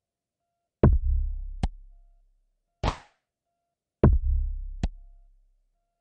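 Korg Volca Drum playing a slow, sparse electronic pattern: twice a deep kick with a long decay, each followed by a short sharp click, and a brief hissing noise hit between them.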